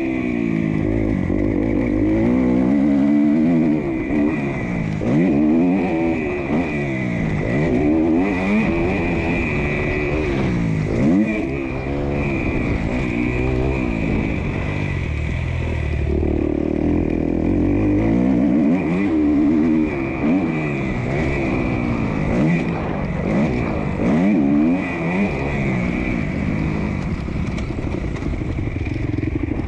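Motocross dirt bike engine revving hard and falling back again and again as the rider accelerates out of corners, shifts up and rolls off for the next turn, heard from on the bike. The pitch climbs and drops every second or two.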